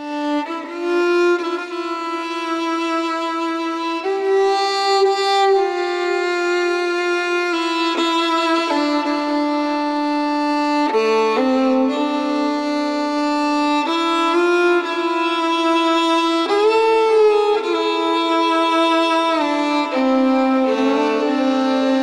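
Background music: a slow violin melody of long held notes that change every second or two, with occasional small slides in pitch. It rises in level over the first second.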